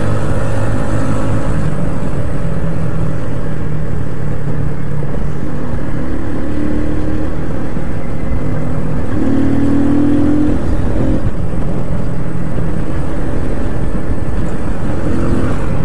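Yamaha SZ-R 150 single-cylinder motorcycle being ridden on a highway, with heavy wind rushing over the microphone. The engine's drone shifts in pitch a few times as the bike changes speed.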